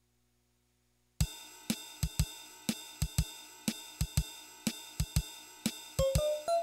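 After about a second of near silence, the Yamaha PS-6100 keyboard's built-in rhythm section starts a drum pattern of bass-drum thumps and hi-hat and cymbal ticks, repeating about once a second. A few keyboard notes come in over it near the end.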